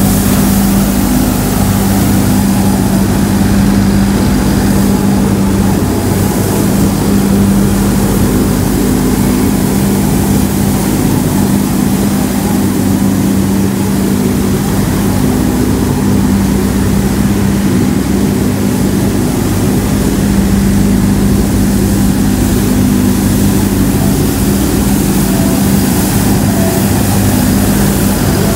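Compact street sweeper's engine and suction fan running at a constant speed: a loud, steady drone with an unchanging hum.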